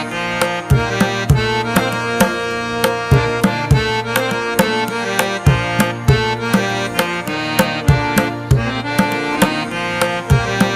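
Background music: a melody with sustained notes over a steady beat of hand-drum strokes.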